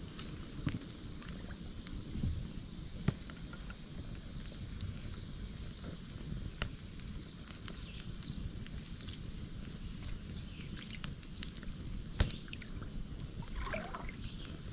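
Wood fire crackling, with a few sharp pops scattered through, over a low steady rumble. A bird calls briefly near the end.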